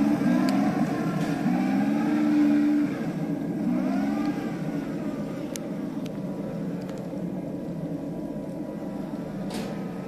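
Radio-controlled model tank driving, its motor sound rising and falling in pitch for the first few seconds, then settling into a quieter, steady running noise.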